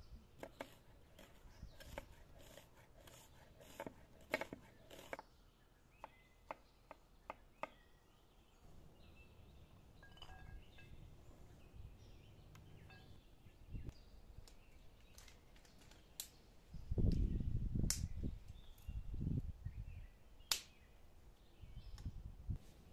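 Chef's knife chopping an onion on a stone worktop: a run of sharp taps, about two a second, over the first eight seconds. About seventeen seconds in comes a louder low rumbling noise lasting a few seconds.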